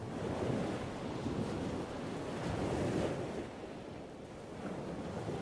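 Sea waves washing on a shore with some wind, a steady rushing that swells and eases.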